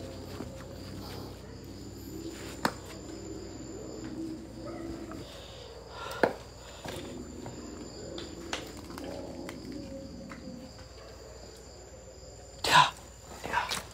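Crickets and other night insects trilling steadily, with a faint low murmur, a few sharp clicks and a couple of louder knocks near the end.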